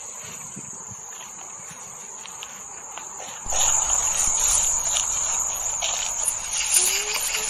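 Insects chirring in a steady, high continuous drone. About halfway through, a louder broad rushing noise joins and stays.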